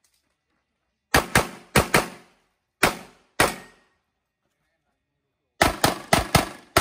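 .40-calibre Metrillo Fastidious pistol firing in quick strings: two fast pairs of shots about a second in, two more shots half a second apart near three seconds, then a rapid run of about five shots near the end. Each shot has a short echo behind it.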